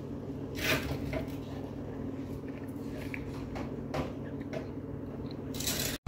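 Someone eating a jam-filled doughnut: a few short chewing and mouth noises, the longest just before the end, over a steady low hum.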